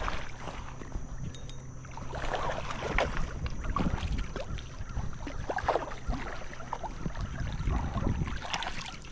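Irregular water splashing and sloshing from a hooked smallmouth bass being played and landed in a creek, with wind buffeting the microphone.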